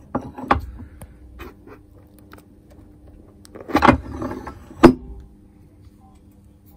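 Metal clicks and knocks from a hand-operated rack press pressing a small pinion gear onto the shaft of a 755-size DC motor, and from the motor being shifted on the steel press plate; the sharpest click comes about five seconds in. A faint steady hum runs underneath.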